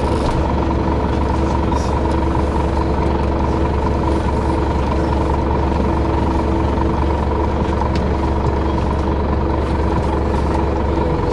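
City bus engine idling while stopped, heard inside the cabin: a steady low hum with a few held tones above it.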